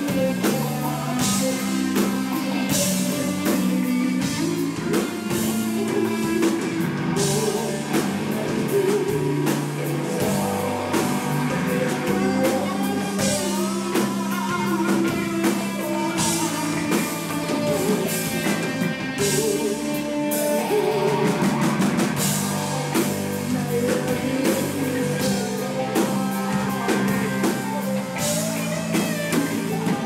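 Live indie rock band playing a song: electric guitar lead over acoustic guitar and a drum kit with regular cymbal hits.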